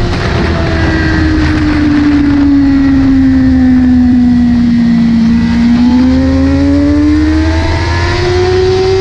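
Sport bike engine running at high speed, with heavy wind rush on the microphone. The engine note falls steadily as the bike slows, bottoms out about five seconds in, then climbs again as the rider gets back on the throttle.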